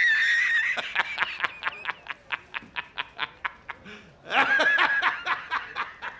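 A man laughing hysterically. A high-pitched wheezing cackle opens it and breaks into a rapid run of short 'ha' bursts, then a second loud cackle comes a little past four seconds in and trails off into more short bursts.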